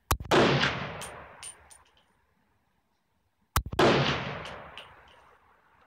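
Two shots from a World War II M1 carbine in .30 Carbine, about three and a half seconds apart. Each is a sharp crack followed by a long echo that fades over a second or two.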